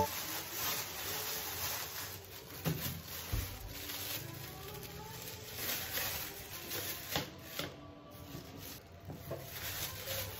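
Thin plastic grocery bags rustling and crinkling as carrots and other produce are pulled out of them, with a few light knocks as items are set down on a plastic cutting board.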